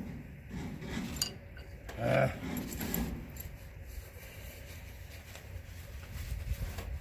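Light metallic clinks and handling noises from hand tools and hose fittings being worked on a tractor's fuel line, with a louder clatter about two seconds in, over a low steady rumble.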